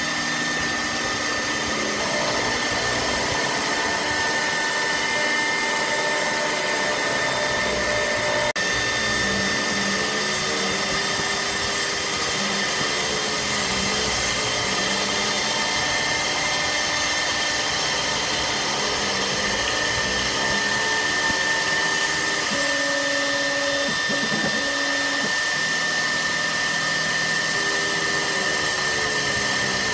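ShopBot Desktop CNC machine milling a 7075 aluminium plate with a small carbide end mill: a steady high spindle whine over cutting noise, with lower tones from the machine's drives rising and falling in pitch every few seconds as the axes move.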